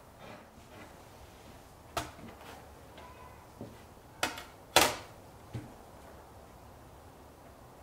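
Metal ingots lifted off and set down on the steel platform of a digital scale: several sharp clacks, the loudest about five seconds in, as a copper disc ingot is set beside a copper bar.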